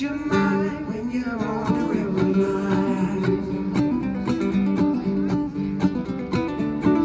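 Acoustic guitar strummed steadily with a voice singing, played live.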